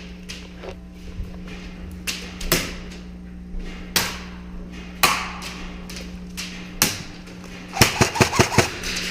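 Airsoft guns firing: scattered single sharp shots or BB hits, then a quick burst of about six shots near the end, over a steady low hum.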